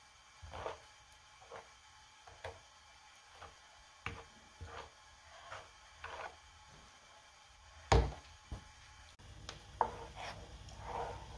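Spatula scraping through thick mashed purple yam (ube halaya) in a nonstick pan, in short irregular strokes, with one louder knock about eight seconds in. A low hum joins about nine seconds in.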